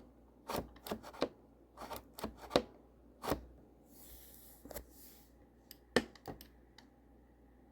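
Irregular sharp plastic clicks and knocks from handling a Roomba 960 robot vacuum and working its spring-loaded drive wheel up and down. The clicks come thickly at first, then a few more after a short soft rub.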